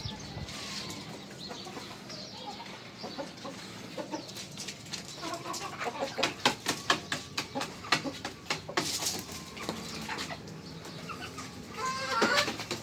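Domestic hens clucking in a small coop, in scattered short calls, with a quick run of sharp clicks in the middle and a burst of clucking near the end.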